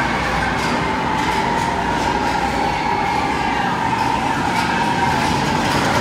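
PeopleMover ride vehicle running along its track, driven by linear induction motors: a steady running rumble with a steady high tone and a few faint ticks.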